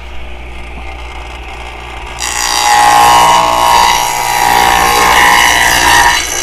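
DeWalt radial arm saw running, then about two seconds in its blade bites into a plywood board as the saw is pulled across it to cut a dado, the cut much louder than the motor's steady hum.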